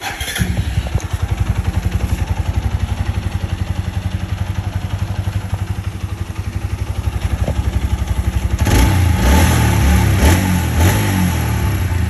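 TVS Apache RTR 160 4V's single-cylinder engine idling with an even, fast exhaust beat, then revved in several quick blips from about nine seconds in.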